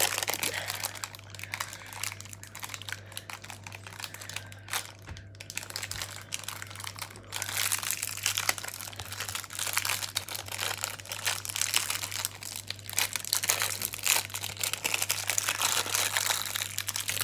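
Clear plastic wrapper crinkling and crackling as it is worked off a frozen ice lolly by hand, on and off at first and busier in the second half.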